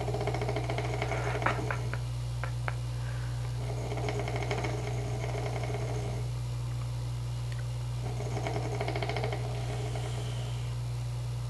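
A man snoring: three rattling snores about four seconds apart, each lasting about two seconds, over a steady low hum. A few sharp clicks come during the first snore.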